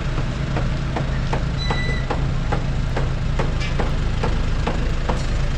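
Pickup truck engine idling, a steady low hum, with a run of light regular clicks over it and a brief high beep about two seconds in.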